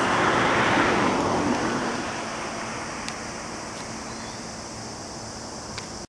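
Rushing noise of a passing vehicle, loudest about a second in and then fading away to a steady background hum.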